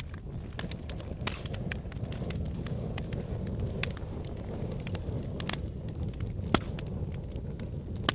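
Wood fire crackling in a fireplace: a steady low rumble of flames with frequent sharp pops and snaps, one loud pop about six and a half seconds in.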